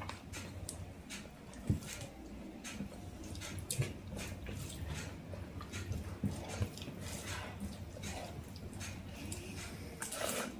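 Rice and chicken curry gravy being mixed by hand on a plate: a run of short wet squelches and clicks, with a few louder knocks against the plate, and eating by mouth near the end.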